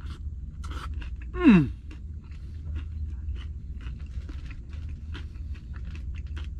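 A person chewing a mouthful of wrap close to the microphone: a string of small wet clicks and smacks. About one and a half seconds in comes one brief loud sound that slides down in pitch, over a steady low hum.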